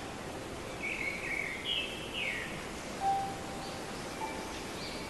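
A small bird chirping a few short, quick phrases over a steady outdoor hiss.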